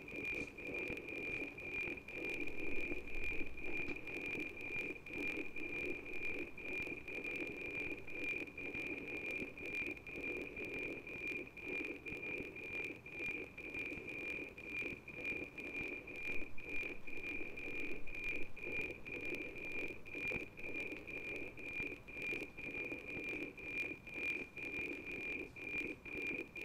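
NOAA-18 weather satellite APT downlink as received by the Icom IC-9100 radio: a steady high whine with a regular ticking from the image sync pulses, over a band of radio noise.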